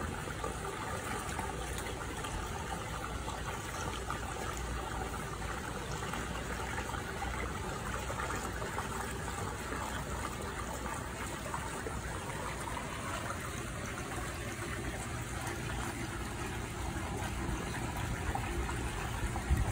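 Steady trickle of running water, an even, unbroken wash of sound.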